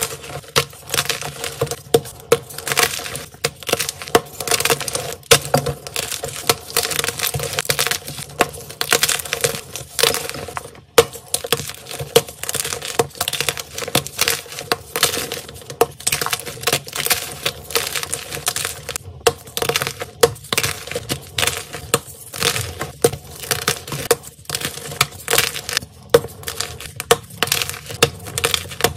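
Blocks of white gym chalk being snapped and crushed by hand: a dense, irregular run of crisp cracks and crunches, several a second, as the blocks break and crumble.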